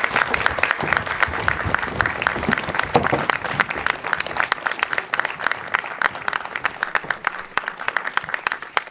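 Theatre audience applauding: dense, steady clapping that thins a little toward the end.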